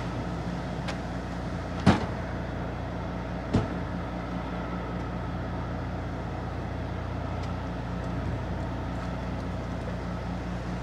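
A semi-truck's diesel engine idling with a steady low hum. Two sharp knocks come about two and three and a half seconds in.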